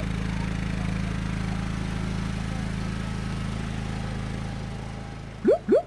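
Old tractor engine running steadily, easing off slightly toward the end. Near the end come two quick rising toots.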